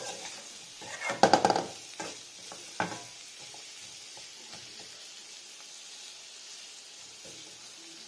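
Potatoes, green peas and bottle gourd peel sizzling in a steel kadhai over a low gas flame, stirred with a metal spoon that scrapes and clinks against the pan, loudest a second or so in. After about three seconds only the steady sizzle is left.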